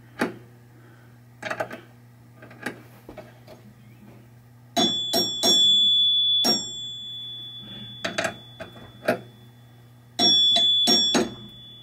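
Chimes of a freshly rebuilt 1976 Bally Captain Fantastic pinball chime unit being struck, a few quick strikes about five seconds in and a few more near the end, each cluster leaving a high bell tone ringing on. Fainter single clicks fall between the clusters, over a low steady hum.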